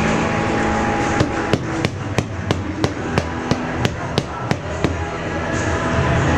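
A run of about a dozen sharp, evenly spaced knocks, about three a second, over steady background music.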